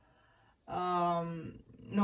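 Speech only: a woman's voice holds one drawn-out, steady-pitched hesitation sound for about a second, after a short pause.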